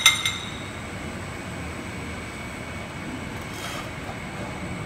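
A sharp metallic clink of kitchenware right at the start, ringing briefly with a couple of quick follow-up clicks, then only a steady, even kitchen background noise.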